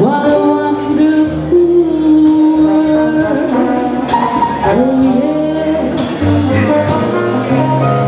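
Live swing jazz band playing, with a woman singing long, held notes over the band's accompaniment of double bass, drums and piano.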